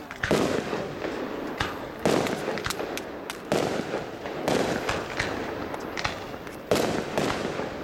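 Aerial fireworks shells bursting one after another, about five loud bangs, each trailing off into crackling, with smaller pops between.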